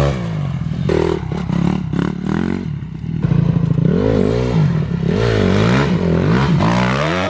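Dirt bike engine running under a rider, revved up and down again and again, its pitch rising and falling in the second half.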